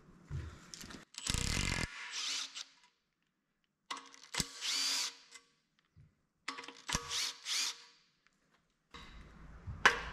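Aerosol spray can hissing in several short bursts as a just-removed engine part is sprayed clean over a rag.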